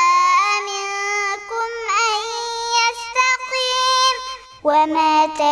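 A child's voice reciting the Quran in a slow, melodic chant, holding long notes and stepping between pitches. There is a short break for breath about four and a half seconds in before the next phrase begins.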